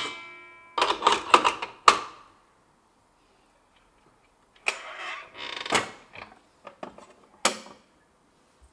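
Clicks and clatter as a dough hook is fitted to a stand mixer and the mixer head lowered over its stainless steel bowl; the first knock sets off a short metallic ring from the bowl. The mixer motor is not running.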